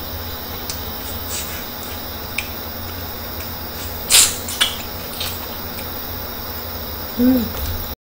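Close-up eating sounds of a person biting and chewing grilled giant freshwater prawn held in the hands: a few small clicks, then two louder sudden mouth sounds about four seconds in, over a steady low hum. A short hum of the voice near the end.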